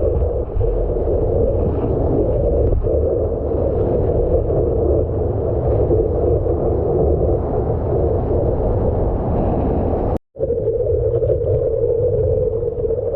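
Steady, muffled rush of water and wind buffeting a GoPro's microphone while paddling and surfing, with a low rumble; the sound cuts out for a moment about ten seconds in.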